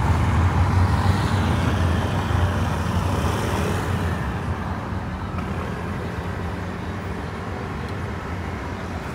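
Road traffic noise with a low engine rumble, loudest in the first couple of seconds, then slowly easing off.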